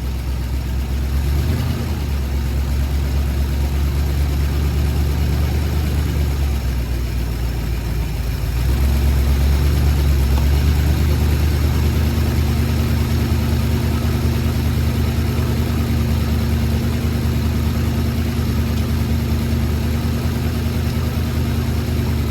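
Ford 390 FE V8 running at idle, steady throughout, growing a little louder about eight seconds in. The engine has a leak at the exhaust, which the owner calls a really bad exhaust leak.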